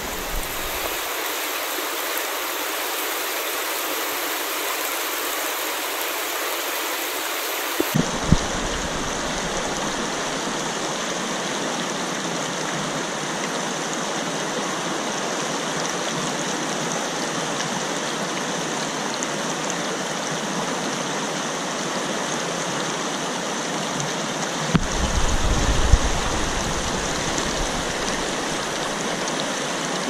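Steady rush of river water pouring over a shallow rapid, with a brief low rumble about 25 seconds in.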